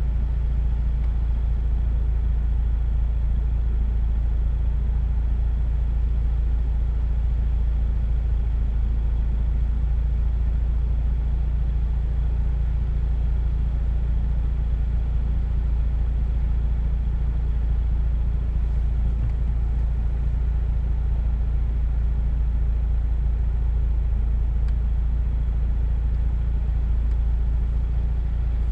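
Mazda RX-8's twin-rotor rotary engine idling steadily with the car at a standstill, a low, even hum heard from inside the cabin.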